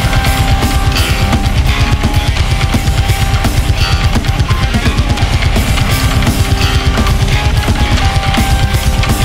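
Heavy progressive rock music: distorted electric guitars and bass over fast, driving drums.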